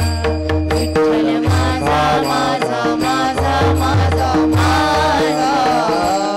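Devotional bhajan music: a singing voice over a steady held drone and a regular beat of low drum strokes.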